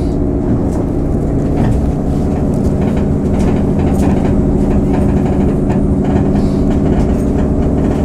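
JR 103 series electric train running, heard from inside the car: a steady low motor and gear hum with scattered clicks of the wheels on the rails.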